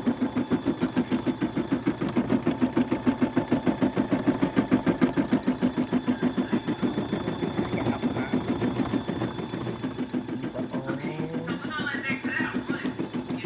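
Brother embroidery machine stitching out a design, its needle running in a fast, even rhythm.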